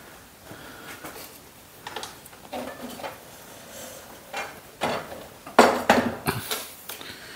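Metal clunks and clatter from handling the ArcDroid portable CNC plasma cutter and its steel sled on the slide bracket, as it is worked loose to be lifted off. A few scattered knocks are followed by a cluster of louder clanks about five and a half to six and a half seconds in.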